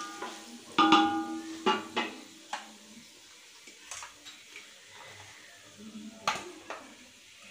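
A metal spoon stirring and knocking against an aluminium cooking pot, the pot ringing briefly with the loudest clank about a second in and a few lighter knocks after, one more near the end. In between, whole spices sizzle faintly in the hot oil.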